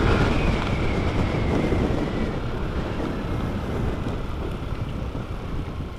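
Wind noise on the microphone of a moving motorcycle, over the low rumble of the bike, slowly growing quieter.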